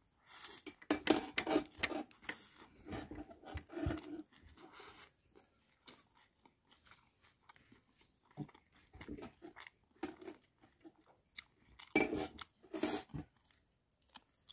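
Close-up mouth sounds of a person chewing a mouthful of rice and grilled eel: wet, crunchy chewing and biting in irregular clusters. It is busiest in the first few seconds and again near the end.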